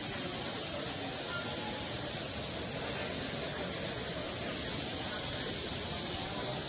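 A steady, even hiss with no distinct strokes or clicks.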